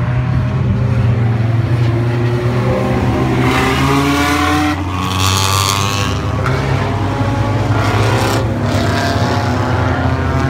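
Thunderstock race car engines running on the track, a steady drone, with one car accelerating past about three to six seconds in, its pitch rising.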